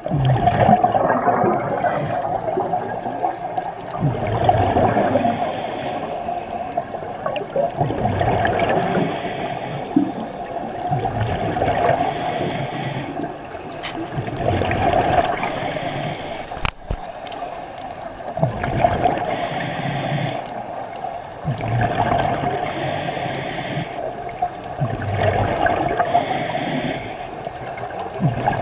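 Scuba regulator breathing underwater, heard through the camera's underwater housing: a slow cycle, about every three and a half seconds, of a bubbling gurgle on the exhale and a hiss on the inhale. A steady drone runs underneath.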